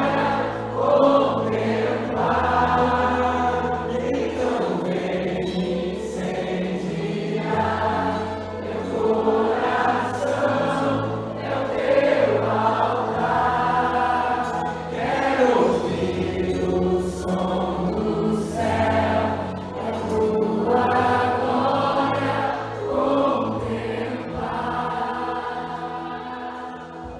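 Choir singing with sustained low notes beneath the voices, fading out near the end.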